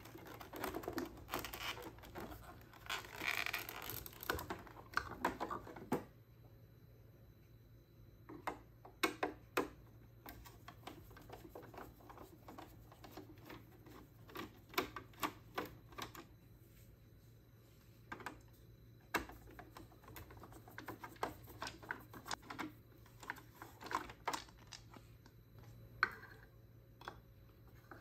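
Screwdriver and hands working on the plastic side plate of a Zodiac TX35 robotic pool cleaner. For the first few seconds there is rubbing and scraping of plastic. Then comes a long run of small, irregular clicks and taps as the screws are backed out and the plate comes off.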